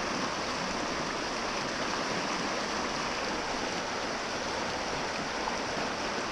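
Fast mountain river running over rocks in rapids: a steady, unbroken rush of whitewater.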